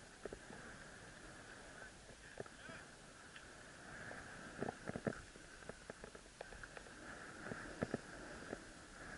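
Skis moving over snow with a faint steady hiss, and scattered soft knocks a few times, the loudest cluster about halfway through.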